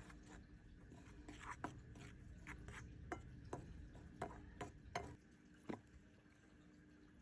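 Metal spoon stirring seasoned flour in a bowl: a soft scraping with a string of light clinks as the spoon knocks against the bowl, ending a little over two-thirds of the way through.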